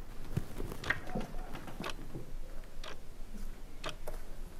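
Clock ticking steadily, about once a second.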